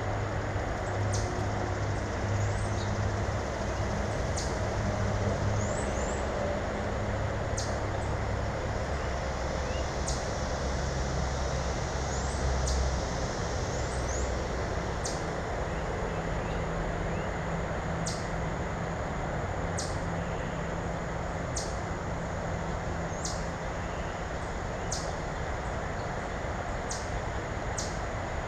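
Small birds giving short high chirps and chip notes every second or two over a steady rumble of distant traffic, which is the louder sound.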